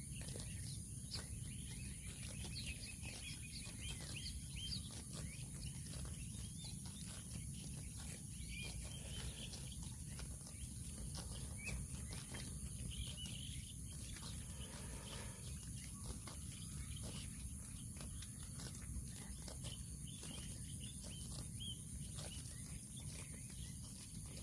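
Cattle grazing: many short crisp crunches and tears of grass over a steady low rumble, with faint bird chirps.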